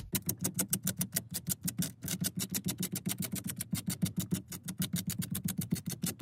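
Rapid, steady ticking, about ten sharp clicks a second, varying a little in loudness.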